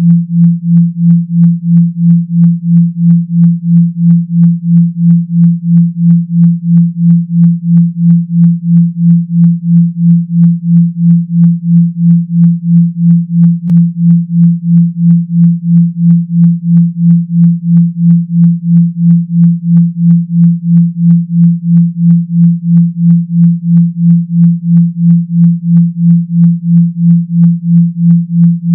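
Synthetic 170 Hz bass tone, a deep electronic hum that pulses evenly about two and a half times a second. It is the kind of vibration tone played to shake water out of a phone speaker.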